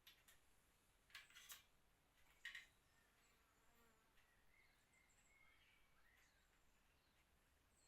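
Near silence: faint room tone with a few brief, faint clicks in the first few seconds.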